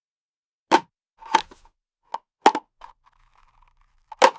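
Six short, sharp knocks at irregular intervals, the last near the end the loudest.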